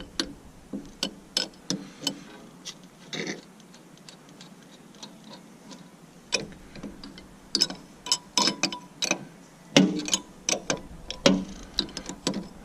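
Tools working on hydraulic line fittings: irregular sharp metallic clicks and taps, scattered at first and coming more thickly in the second half.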